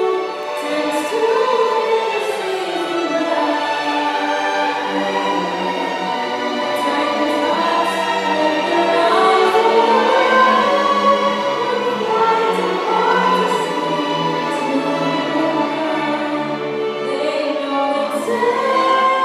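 String orchestra playing a slow ballad arrangement, with a solo voice singing over the strings.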